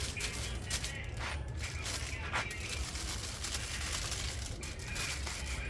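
Aluminium foil crinkling and rustling in scattered bursts as it is folded around a fish, over a low steady rumble.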